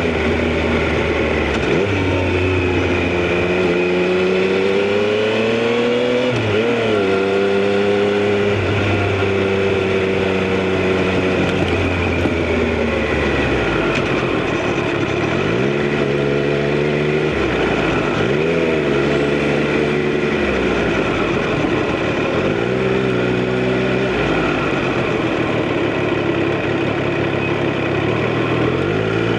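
Triumph Street Triple RS inline three-cylinder engine and exhaust, heard from the rider's position on the move. The engine note climbs steadily over the first few seconds and then holds. In the second half it dips and recovers quickly several times as the throttle is closed and reopened.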